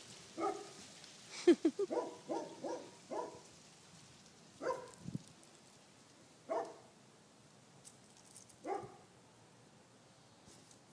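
A dog barking: a quick run of short barks in the first few seconds, then single barks about every two seconds.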